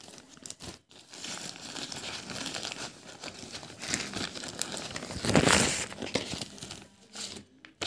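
Plastic courier mailer bag crinkling and rustling as it is handled and opened by hand, loudest about five and a half seconds in.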